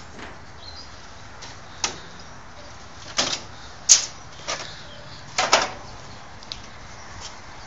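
Scattered knocks and clatters of tools and gear being handled and set down on a table: about six sharp hits, the loudest about four seconds in, over a steady low background noise.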